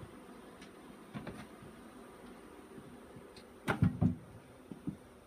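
Metal watering can set down on the floor: a quick cluster of clunks a little past halfway through, the loudest sound here, followed by two lighter knocks, with a few faint handling clicks earlier.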